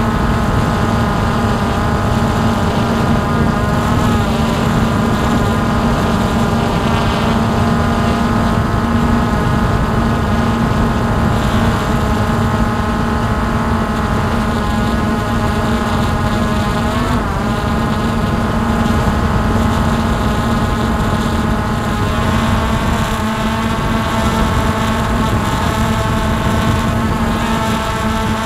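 Hubsan H109S X4 quadcopter's four motors and propellers whirring steadily while it hovers, heard from the camera mounted on the quad itself, with a rushing noise underneath. The pitch wavers briefly twice as the throttle shifts.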